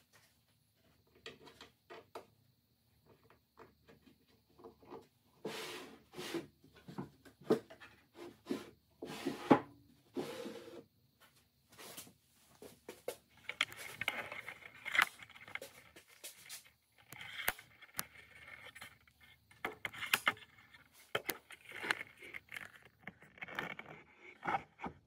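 Wood being handled: knocks, clicks and scraping rubs as a plywood drawer is worked in and out of a walnut cabinet, uneven and intermittent, with the busiest scraping in the second half.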